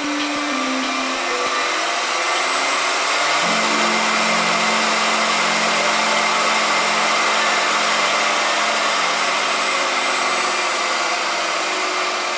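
FU 230 benchtop lathe running its motor and spindle up to high speed, about 3,800 rpm on its readout. The result is a loud, steady machine noise that grows a little louder over the first few seconds as the speed climbs.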